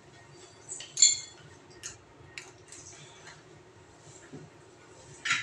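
Hard clinks and light knocks of fittings being handled against a ceramic toilet cistern while its flush mechanism is fitted. The sharpest, ringing clink comes about a second in, a few lighter taps follow, and another clink comes near the end.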